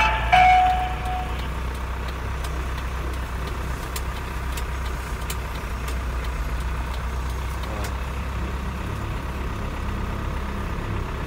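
Truck engine running steadily, heard from inside the cab, with a short electronic beep right at the start.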